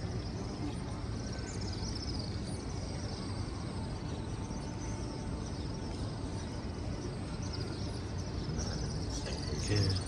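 Steady background noise with a low rumble and faint, repeated high chirps; a louder sound comes in near the end.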